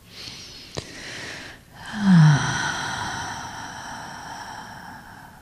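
A bell struck about two seconds in, ringing with several overlapping tones that fade slowly; before it, a soft breathy hiss.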